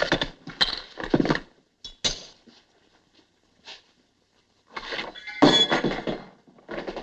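Hard clinks and clatter of freshly baked dentures and crockery being set down on a tabletop, in a quick run of knocks at the start and one more about two seconds in. Near the end comes a longer, denser stretch of clattering noise.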